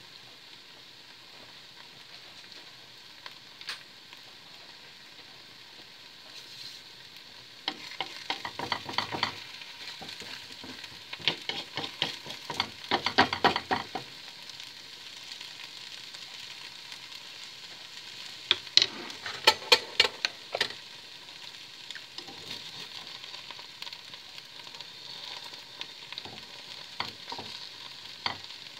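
Eggs frying in a pan with a steady sizzle, while a wooden spatula scrapes and taps against the pan in three spells of quick, loud clicks.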